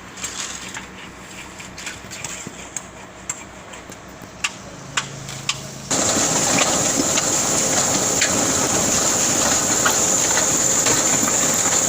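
Volumetric concrete mixer running: a low engine rumble with scattered clicks, then about six seconds in, a much louder steady mechanical rush with a high hiss switches on abruptly and holds.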